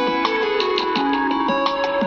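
A Samsung Galaxy Tab A 8.0 ringtone playing: a melody of short, plucked, guitar-like notes over held tones.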